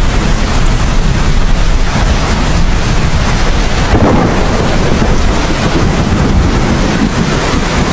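Steady heavy rain with a low rumble of thunder underneath, swelling briefly about four seconds in.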